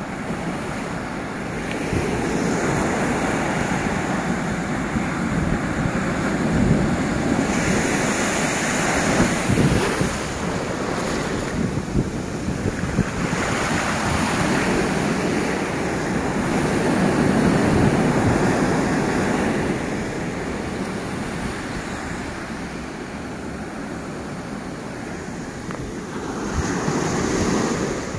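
Ocean surf breaking and washing over rocks at the shoreline. The continuous rush swells and eases several times as the waves come in.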